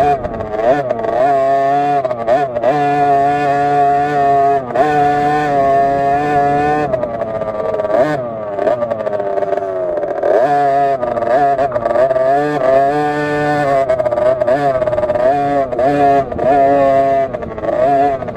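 KTM SX50 50cc two-stroke minibike engine racing under hard throttle. The revs are held high, then drop off and climb again every second or two as the rider shuts off and opens up through the corners.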